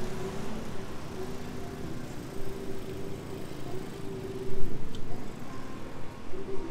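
Street traffic: car engines running with a steady hum, and a brief low thump about four and a half seconds in.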